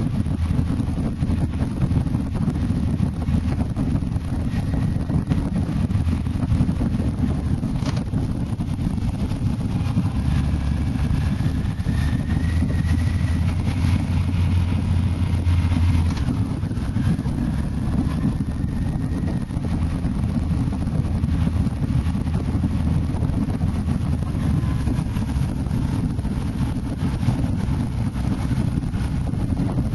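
Wind buffeting the microphone of a moving motorcycle over the steady drone of its engine, which grows louder about ten seconds in, with a faint rising whine, and eases again around sixteen seconds.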